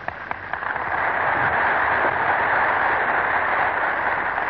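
Audience applauding at the close of a lecture. A few separate claps come first, then the applause swells into a dense, steady clapping.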